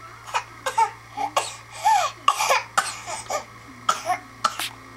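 An 8-month-old baby vocalizing excitedly: a rapid string of about a dozen short, breathy squeals and huffs, some with a quick rise and fall in pitch.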